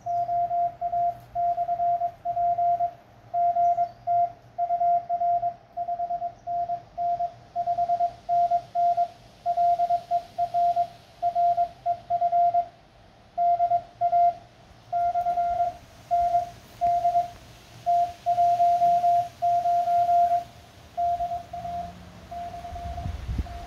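Morse code keyed on a portable amateur radio transceiver, heard as its sidetone: one steady mid-pitched beep switched on and off in dots and dashes. Near the end the beeps turn fainter.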